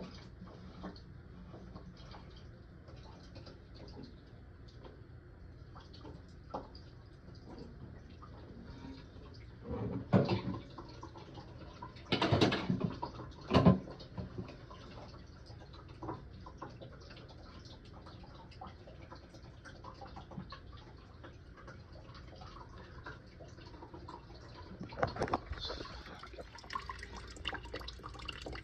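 Toilet fill valve being fitted in a tank: water drips and small plastic clicks and scrapes, with a few louder knocks between about 10 and 14 seconds in.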